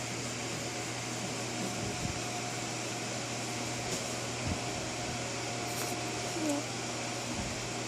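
Steady whirring hum of a running fan-type appliance, with a few faint, brief soft sounds over it.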